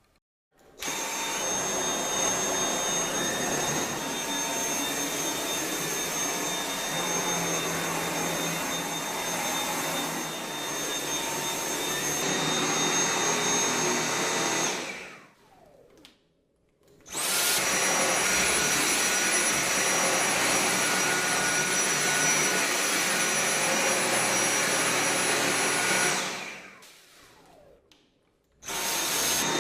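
Vacuum cleaner motor running with a steady airy rush and a high whine. It is switched on, runs, switched off and winds down twice: once about 15 seconds in and again about 27 seconds in, each time starting up again a second or two later.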